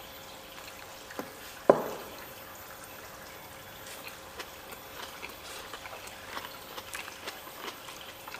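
Close-up eating sounds of people chewing fried tilapia and rice eaten by hand: wet chewing and lip smacks as many small clicks, growing busier from about four seconds in. About two seconds in, a single sharp clink of crockery with a brief ring is the loudest sound.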